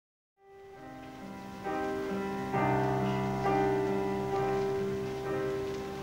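Instrumental introduction to a musical-theatre ballad: soft held chords start out of silence about half a second in, change every second or so and grow steadily louder.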